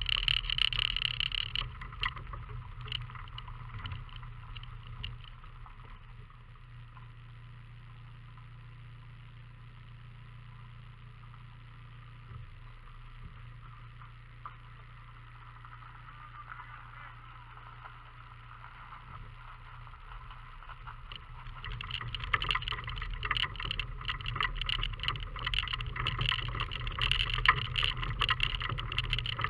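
Fiat Panda 4x4 driving along a rough gravel track: a steady low engine drone under the crunch of tyres and the rattle of loose stones. The crunching and rattling are loud at the start, die down to a quieter steady drive for a long middle stretch, and come back loud about three-quarters of the way through.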